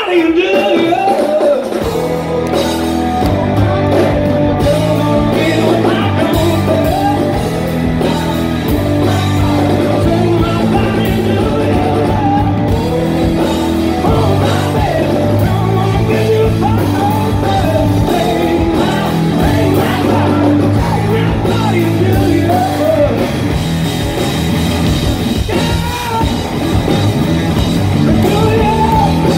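Rock band playing live and loud, with bass and guitar under a sung vocal line. The low bass notes come in about a second and a half in.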